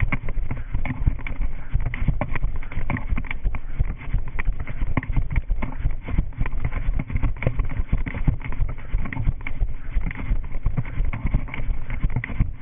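A runner's quick footfalls on paved paths, heard from a GoPro worn on the runner's body, as a steady stream of thumps with the camera knocking and rubbing at each stride.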